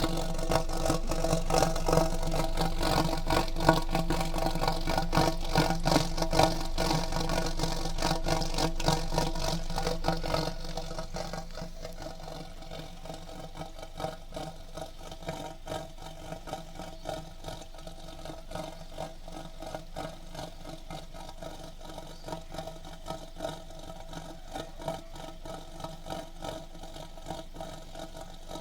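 Volkswagen Tiguan's 1.4-litre, 125 hp engine running, its exhaust giving a steady drone with a fast rattle. It is louder for about the first ten seconds, then settles to a quieter level. The owner takes the rumble for abnormal in a car this new; the dealer found no fault and called it normal.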